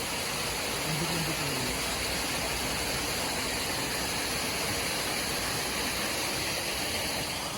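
Steady rushing of stream water, an even wash of noise with no breaks.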